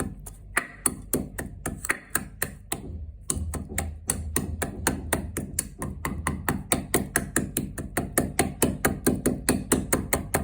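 Soaked fennel seeds and rock sugar being pounded in a small hand crusher: rapid, even taps about four to five a second, with a brief pause about three seconds in.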